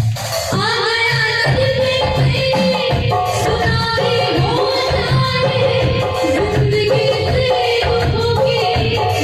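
Devotional bhajan music: singing over instrumental accompaniment with a steady drum beat.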